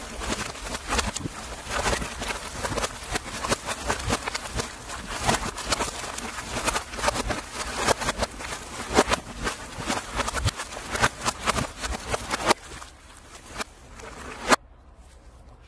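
Quick, irregular knocks and thuds of heavy sotol heads being tossed onto the pile and into a stone-lined pit oven, the clatter thinning out about twelve seconds in, with one last sharp knock near the end before the sound drops away suddenly.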